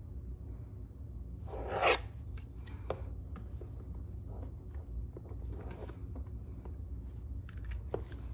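Dry rubbing, light scuffs and small clicks of a lens pen brushing and wiping a rifle scope's lens, with one louder rubbing swish about two seconds in. A low hum runs underneath.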